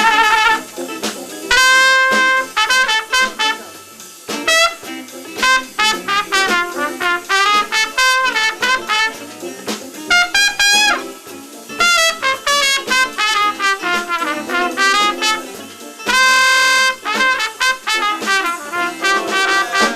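Trumpet solo over a live jazz band: quick melodic runs broken by long held notes, one about a second and a half in and a longer one near the end.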